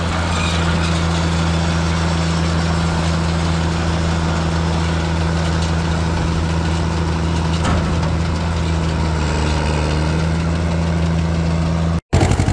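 Tractor engine running steadily while it drives a New Holland round baler, with a single short knock about two-thirds of the way through. Near the end the sound cuts to a different tractor engine chugging in even beats.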